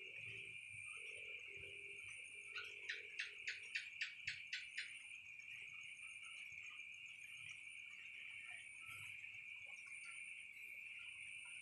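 Night insects, crickets, chirping in a steady high-pitched chorus. About two and a half seconds in comes a quick run of about nine louder chirps, roughly four a second.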